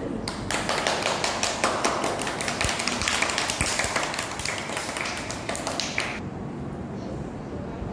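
Applause from a small group of people, a dense run of hand claps that stops abruptly about six seconds in.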